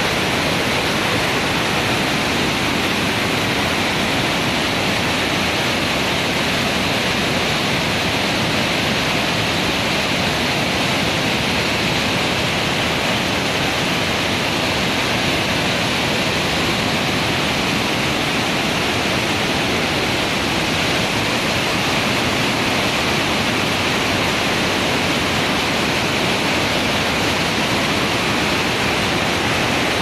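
Muddy flash-flood water pouring over a wide rock waterfall cascade: a loud, steady rush of whitewater, the river in swift, strong flood.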